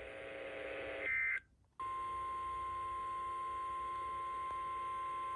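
NOAA Weather Radio broadcast tones. A short warbling SAME data burst comes about a second in, then a brief gap. From about two seconds in the steady 1050 Hz warning alarm tone sounds, which signals the start of an alert, here a weekly test.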